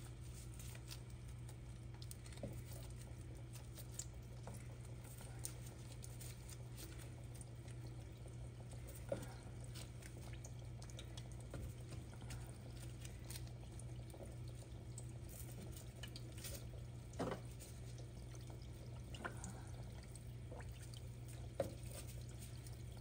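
Johnny cakes (rounds of flour dough) frying in a pan of vegetable oil: faint, steady bubbling sizzle with a few scattered small pops, over a steady low hum.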